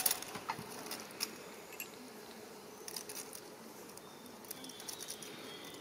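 Quiet outdoor background with a few light clicks and knocks in the first couple of seconds and faint ticks later: the small rattle of gear and wooden polearm shafts as a line of reenactors stands with vouges grounded.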